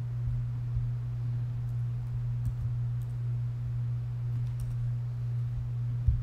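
Steady low electrical hum, with a few faint computer clicks and a soft thump near the end.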